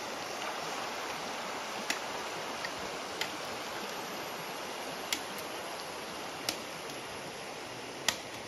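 River water running over a shallow stony riffle, a steady rushing, with a few short sharp clicks at uneven intervals, the loudest near the end.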